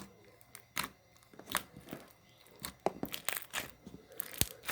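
Clear slime with fishbowl and foam beads being squished and stretched by hand, giving scattered, irregular crackles and clicks.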